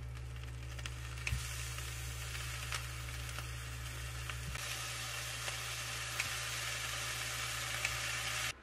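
Steak searing in a frying pan: a steady sizzle with scattered pops and crackles over a low steady hum, cutting off suddenly near the end.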